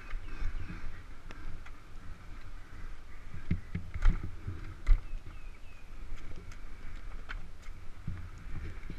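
Low rumble and rattling knocks from a dirt bike jolting over a rough, muddy woodland trail, picked up by a camera mounted on the bike, with two hard thumps about four and five seconds in. No engine note is heard.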